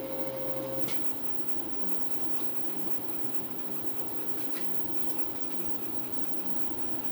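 A CNC mill running an engraving program with a spring-loaded carbide engraving tool: steady machine noise from the motors driving the axes. A steady tone stops about a second in, and there are a couple of light clicks.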